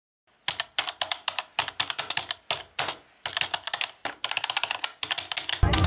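Keyboard typing clicks in quick runs with short pauses, a typing sound effect for on-screen text being typed out. Just before the end, loud music cuts in.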